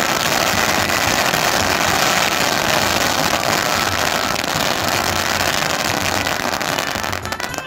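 A long string of about 2,000 firecrackers going off in one continuous rapid crackle, thinning to a few separate pops near the end.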